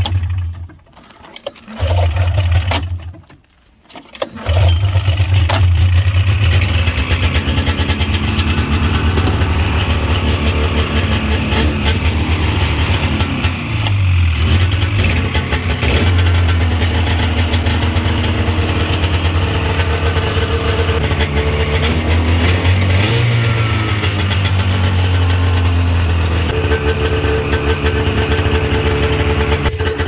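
Polaris 440 Pro X snowmobile's fan-cooled two-stroke engine cold-starting on full choke at about −22 °C. It catches, dies about a second in, catches again and dies once more. From about four seconds in it keeps running, its revs rising and falling a few times.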